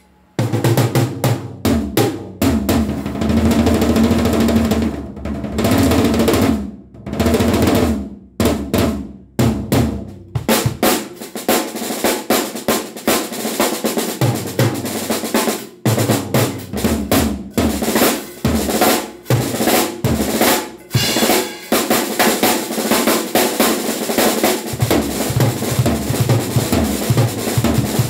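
Acoustic drum kit played solo: a string of fast fills across snare, toms and bass drum in 1970s rock and fusion style, with brief pauses between phrases. Over the last several seconds the strokes run on without a break.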